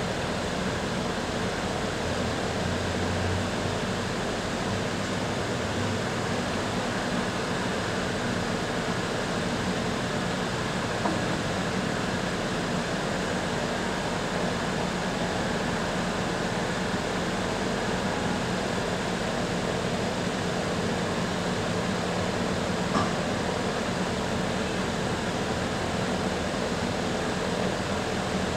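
Steady background rumble of city traffic and construction-site machinery with a constant low hum, and one short knock late on.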